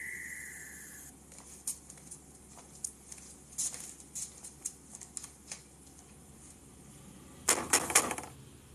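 Kitchen sounds: a high steady tone fades out in the first second, then scattered light clicks and taps, and near the end a short burst of sharp clattering as a kitchen cabinet is opened and the things inside are handled.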